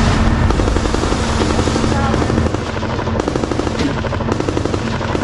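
Tank heard from its own turret roof: a fast, continuous rattle over a steady low drone, with a few sharp cracks.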